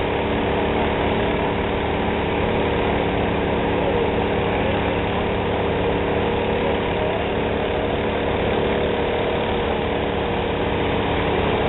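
A fire engine's engine running steadily at constant speed, driving the pump that feeds the hoses, with a steady hiss behind it.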